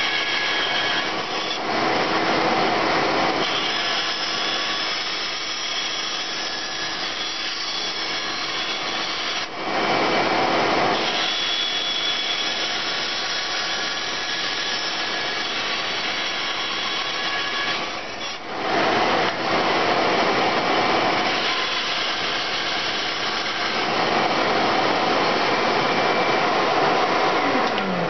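Bandsaw running and cutting through wood: a 3/4-inch board being resawn edgewise, a steady hum and cutting noise with two brief breaks, about a third and two thirds of the way through.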